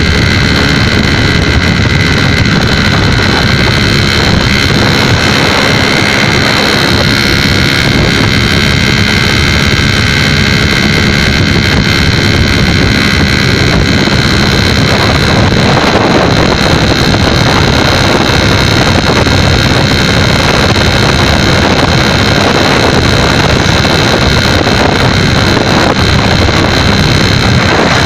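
Suzuki RC80 motorcycle engine running steadily at cruising speed, with wind rushing over the microphone.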